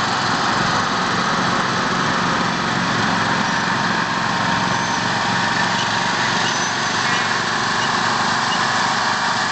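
Small lawn mower engines running steadily.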